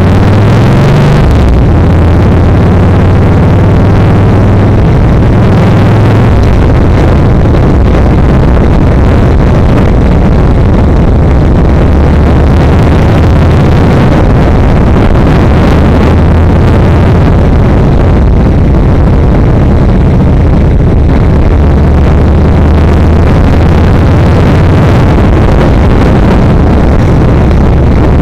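Yamaha XVS1300's V-twin engine running under way, its note climbing briefly about a second in and then holding fairly steady, under a loud steady rush of wind noise.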